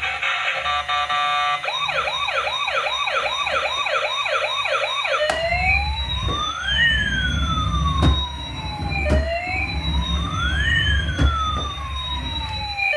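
Electronic toy emergency-vehicle siren: a fast yelp of quick rising sweeps, switching about five seconds in to a slow wail of two tones rising and falling against each other. A low rumble and a few sharp knocks run underneath.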